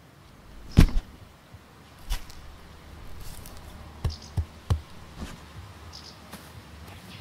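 Sound effects from an animated film: a scattering of soft thumps and light knocks over a faint background. The loudest thump comes just under a second in, then a quicker run of three around the middle, with a few short high chirps.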